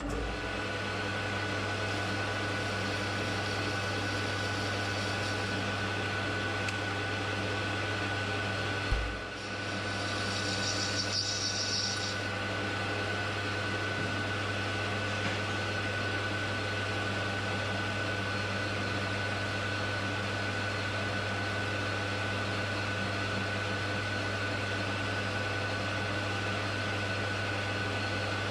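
A machine tool's electric motor starts and runs with a steady hum and a high whine. About nine seconds in the hum briefly dips with a thump and picks up again, and for about two seconds after that a high hiss rides over it.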